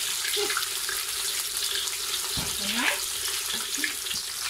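Whole fish frying in hot oil in a wok: a steady sizzle.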